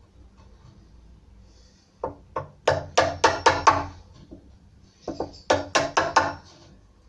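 Two quick runs of sharp, ringing hammer taps on a chisel, chopping a recess into a wooden door: about seven taps, a short pause, then about five more.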